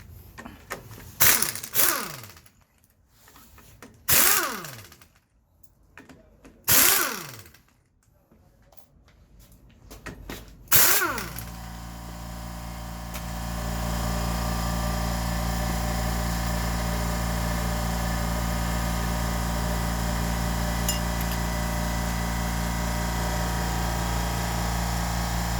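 Power tool run in four short bursts, each spinning down with a falling pitch, then from about eleven seconds in a steady machine drone that holds without change.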